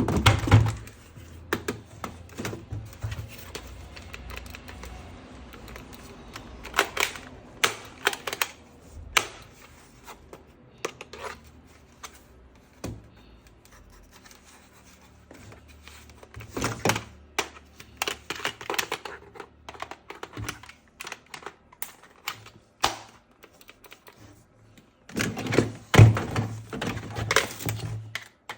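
Hard plastic toy parts being handled and clicked together: irregular sharp clicks, taps and knocks in bursts, with the loudest cluster near the end.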